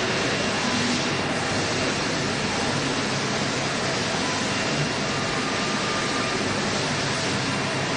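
CNC router spindle milling a foam mould pattern: a steady, even hiss-like whir with no rhythm.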